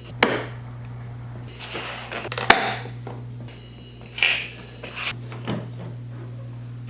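Handling sounds from work on a snowmobile: a few sharp clicks and knocks, the loudest about two and a half seconds in, with brief rubbing and rustling of parts between them, over a steady low hum.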